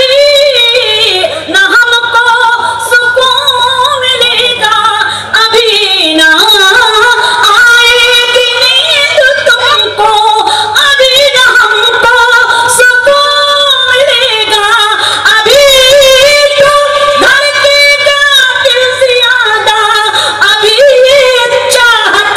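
A woman singing a line of an Urdu ghazal in tarannum, holding long, wavering, ornamented notes, with a couple of short breaths between phrases.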